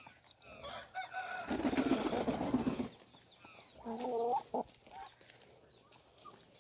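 Free-range chickens calling: a few short calls about a second in, then a rough, harsh call lasting over a second, and a short clucking call about four seconds in.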